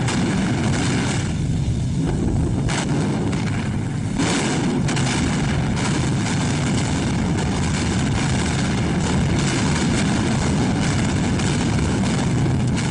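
Propeller-driven heavy bombers' piston engines droning steadily overhead.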